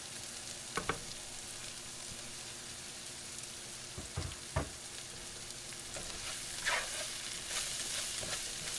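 Squash and bell peppers sizzling steadily in olive oil in a skillet, with a few knocks and scrapes of a utensil stirring them in the pan.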